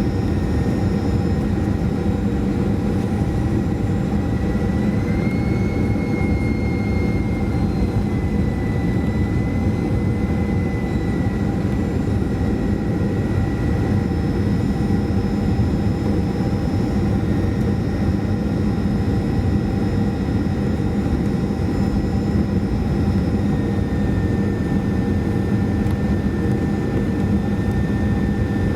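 Cabin noise inside a Boeing 737-400 in flight: the steady roar and whine of its CFM56 turbofan engines and airflow. The engine whine rises slightly about five seconds in, then settles back.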